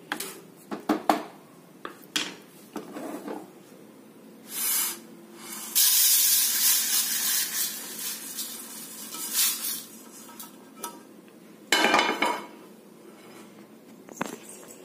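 A wooden spatula scraping and stirring dry-roasted split moong dal in a metal pan. Then the dal is tipped out of the pan, and the grains pour in a steady rushing patter onto a steel plate for about four seconds, with a shorter pour near the end.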